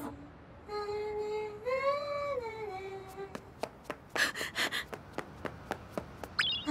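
A cartoon girl's voice humming a slow melody wordlessly for a couple of seconds. Then light animated footsteps come at about four a second. A short rising electronic chirp sounds near the end.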